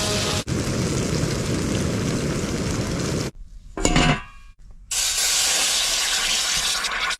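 Food sizzling and hissing in a hot pan. It breaks off for about a second and a half in the middle, where one short, brighter sound is heard, then sizzles on again.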